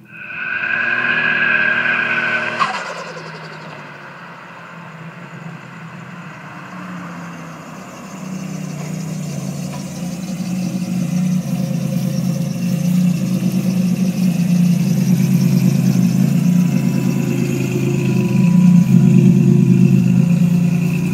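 1987 Buick Grand National's built 3.8-litre turbocharged V6 going past loudly with a high whine for about three seconds, then idling steadily, the idle growing louder near the end close to the exhaust.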